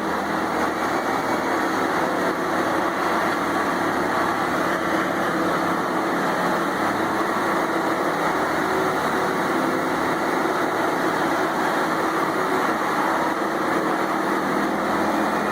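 Morbark drum chipper's engine running steadily at working speed, a continuous mechanical drone with no separate knocks or bursts of wood going through.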